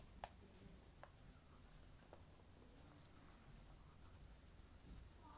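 Near silence with faint handling noise: fingers pushing silk fibres (lika) into a small glass ink bottle, with a few light ticks.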